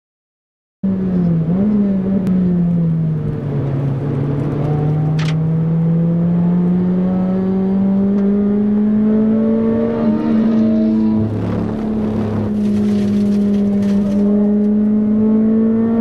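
Car engine heard from inside the cabin under track driving, starting about a second in. Its note drops, then climbs slowly and steadily, breaks briefly about eleven seconds in, then climbs again.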